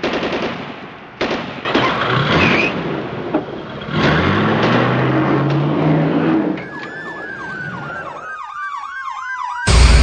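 Vehicle noise with a rising engine note, then an emergency-vehicle siren warbling quickly up and down. Music cuts in right at the end.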